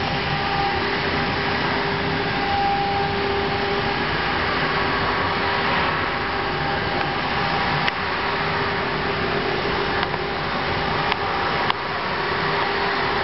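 Spindles of a two-head CNC router running and cutting into a board: a steady machine noise with a constant whine. A few sharp clicks come in the second half.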